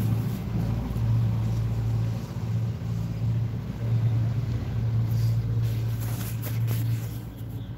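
A steady low hum with brief dips, over faint background noise.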